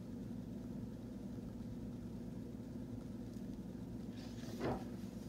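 Steady low background hum, with one brief rustle of the hardcover picture book being closed and handled about four and a half seconds in.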